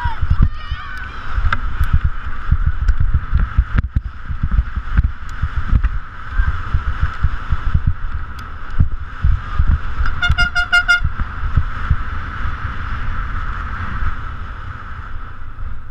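Wind rumble and rattling knocks from a helmet-mounted action camera on a downhill mountain bike riding fast over a rough grassy track. Spectators shout at the start, and a brief pulsing horn-like tone sounds about ten seconds in.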